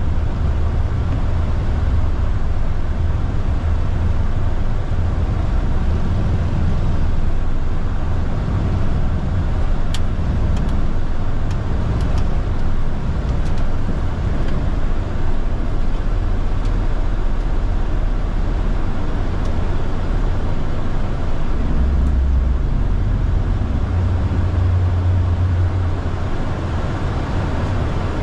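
Flight-deck noise of a Boeing 747-8 on takeoff after V1: a loud, steady low rumble through the rotation and climb-out. A few faint clicks come about ten to fourteen seconds in.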